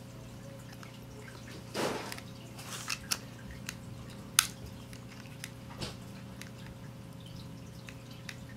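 Small scattered clicks and taps of a small screwdriver and plastic kit parts being handled and screwed together, with a short soft rustle about two seconds in. A steady low hum runs underneath.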